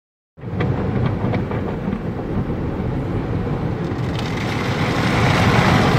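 Automatic car wash heard from inside the car: water and foam spraying and washing over the windshield and body as a steady rumbling wash, with a few faint ticks, growing a little louder toward the end.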